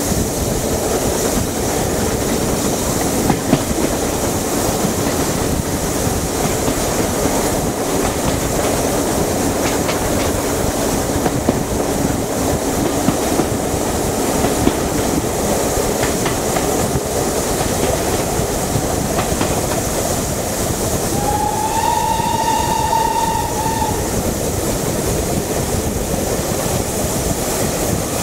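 Steam-hauled train running at speed, heard from an open carriage window: a steady rumble and clatter of wheels on rail with scattered clicks. About 21 seconds in, a locomotive steam whistle blows once for about two and a half seconds, rising briefly in pitch before holding.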